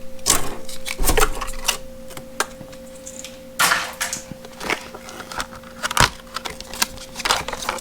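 Packaging being cut open and handled: irregular sharp clicks and snaps with a few short crinkling rustles, over a faint steady hum.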